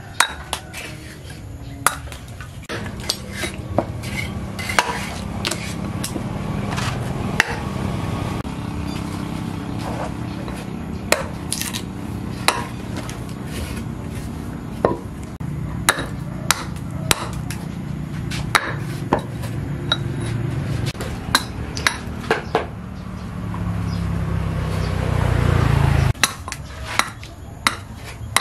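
A hand hatchet chopping and trimming a block of wood held upright on a stump, sharp knocks about once a second. Behind it runs a steady low machine hum that grows louder and cuts off suddenly near the end.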